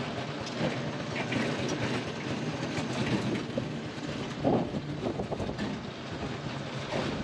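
Small motorbike riding along a paved road: steady running noise of the bike and tyres, with a brief louder sound about four and a half seconds in.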